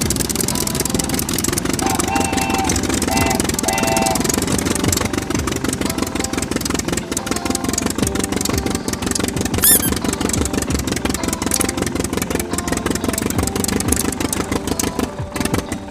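A small motor running steadily with a fast, even rattle, with a few short tonal beeps about two to four seconds in and a brief squeaky chirp near the middle.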